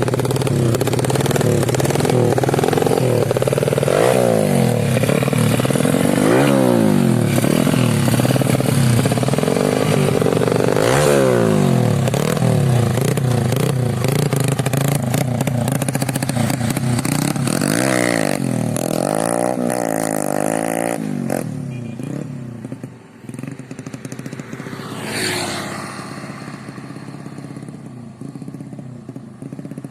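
Yamaha Vega ZR underbone motorcycle's single-cylinder four-stroke, bored out to 130 cc with a custom camshaft and a Supra X 125 carburettor, being revved up and down over and over, with a quick string of blips about two-thirds through. After that it settles to a quieter, lower engine note with one more rev near the end.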